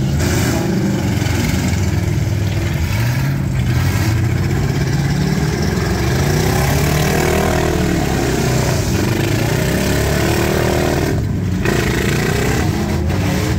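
Several V8 demolition derby cars' engines running loudly together, their revs rising and falling, most plainly around the middle.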